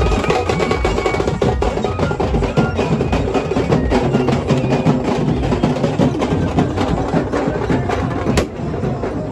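Fast, dense drumming with many quick strokes over the noise of a crowd. A single sharp crack comes near the end.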